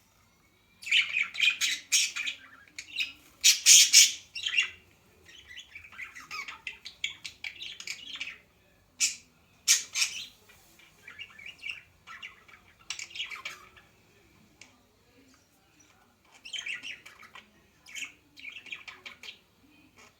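A bird chirping and squawking in irregular bursts, with short pauses between them.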